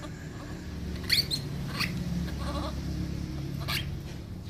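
A small young animal being rubbed dry in a towel gives a few short, high-pitched cries.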